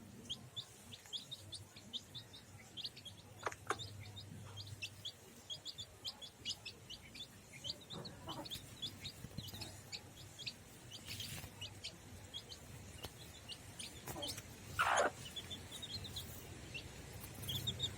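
Chicks peeping with many short, high chirps in quick succession throughout, and one louder, lower call from an adult chicken about fifteen seconds in.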